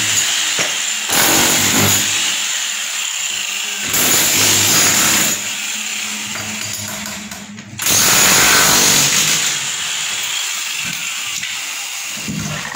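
A power tool running in repeated loud bursts of about a second and a half, with a lower running noise between them.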